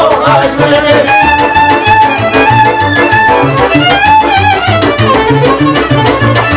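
Polish highlander (góralska) folk band music. A fiddle leads the tune with long held notes and some vibrato, over accordion and a plucked double bass keeping a steady beat.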